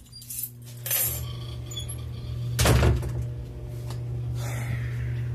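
A steady low hum sets in and holds throughout, with clinks and knocks of things being handled about a second in and a louder knock near the middle.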